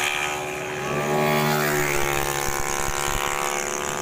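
Racing automatic scooters' engines buzzing at high revs as they pass the corner. One engine note fades slightly, then another comes in rising in pitch about a second in.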